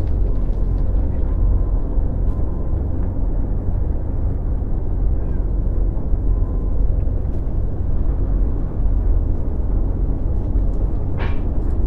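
Steady low rumble of wind buffeting the microphone, with a brief higher-pitched sound near the end.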